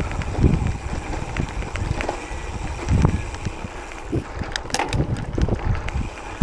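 Riding a gravel bike: wind buffets the microphone in uneven gusts over the tyre noise, with scattered small clicks and rattles from the bike, more of them a little past the middle.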